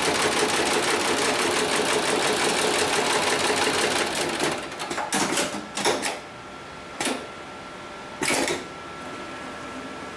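Heavy-duty programmable pattern sewing machine (HIGHTEX 7273CNC/X) stitching polyester lifting straps with a fast, even rattle. It stops about halfway through. A few short clatters follow, over a faint steady hum.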